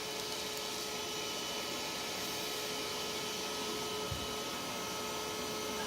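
Vacuum cleaner running steadily, a constant whirring hiss with a steady whine. There is a brief low bump about four seconds in.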